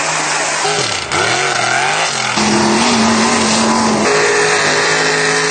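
Mega truck engines revving hard, several clips spliced together. The engine pitch dips and climbs around a second in, then holds high and steady.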